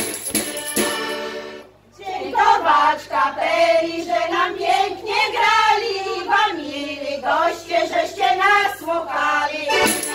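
A group of women singing a folk song together into stage microphones. Instrumental music fades out just before two seconds in, the voices carry on alone, and the instruments come back in at the very end.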